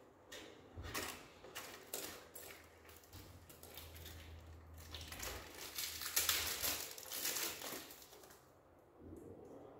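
Rustling, crinkling handling noises with scattered clicks, loudest about six to seven seconds in and dying down near the end.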